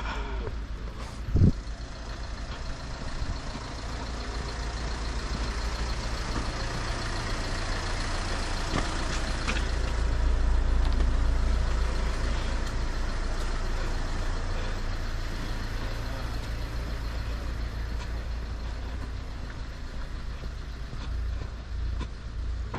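Vehicle engine running with a low rumble that swells to a peak midway and then fades. There is a single sharp thump about a second and a half in.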